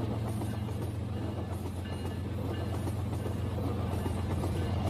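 Battery-powered toy train running along plastic track: a steady, even motor hum with a rattling whirr.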